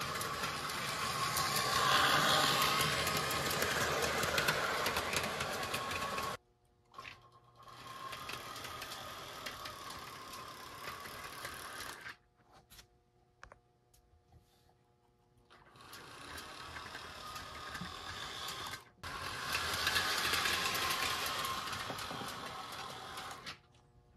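Lionel Trains n' Truckin' toy train running, its small electric motor whirring with a rattle of wheels on the track. The sound comes in several stretches broken by sudden breaks of near silence.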